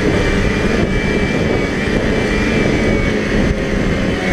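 2004 Polaris Pro X 550 snowmobile's two-stroke twin running steadily under way through a Snow Stuff aftermarket exhaust can, with a thin high whine held over the engine.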